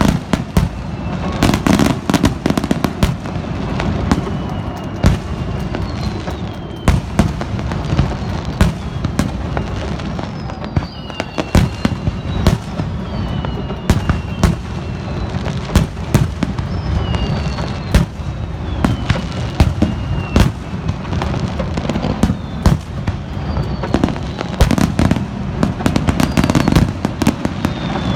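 Fireworks display finale: a dense, continuous barrage of bursts and booms over a constant low rumble, with several high whistles falling in pitch cutting through.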